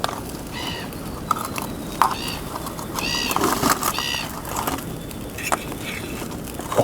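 Birds calling: several short, high, arching calls, roughly one a second, over a steady background hiss.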